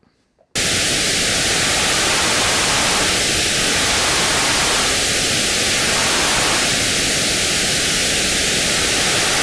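Loud, steady white noise from an EaganMatrix synth patch, starting abruptly about half a second in. It passes through a notch filter set around 1 kilohertz, and the notch deepens and fills in several times as its resonance is adjusted.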